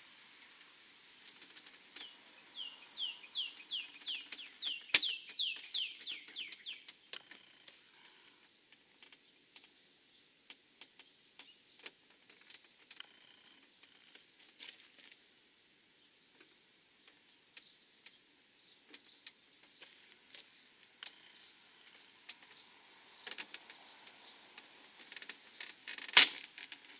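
Scattered small clicks and taps of plastic fairing clips being worked loose on a Honda Forza scooter's front cowl, with one loud sharp snap near the end as a clip lets go. A few seconds in, a bird sings a quick run of about a dozen falling whistled notes.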